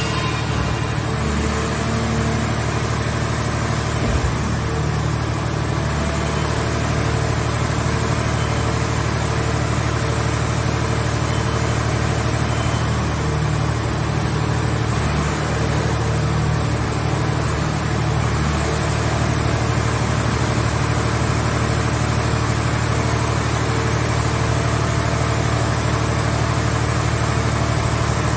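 Hydraulic scrap car baler running: its power unit and hydraulic pump make a steady, heavy drone with a thin high whine that wavers slightly.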